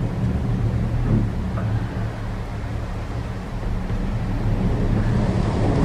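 Steady low rumble and wind noise inside a Leitner eight-seat detachable gondola cabin travelling along the cable.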